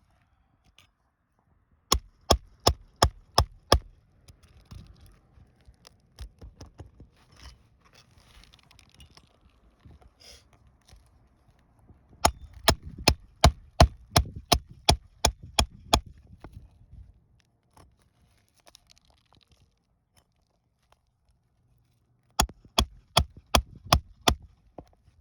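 A hammer striking a roof snake worked under asphalt shingle tabs to pull out the roofing nails. Three runs of quick, sharp blows, about four a second, with quieter scraping of the tool and shingles between them.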